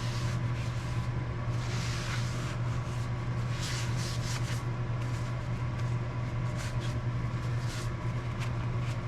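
Rag wiping dark slurry off a cast-iron lathe slide in several rubbing strokes, over a steady low hum.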